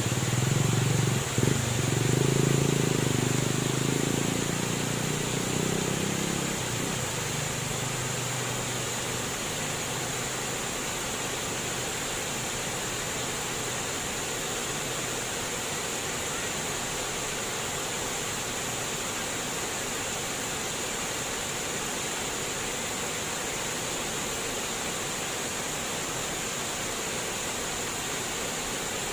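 Flowing water, a steady rushing noise with no breaks. A low rumble underneath fades away over the first several seconds.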